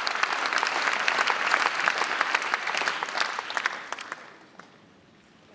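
Audience applauding, a dense clatter of many hands clapping that thins out and fades away about four seconds in.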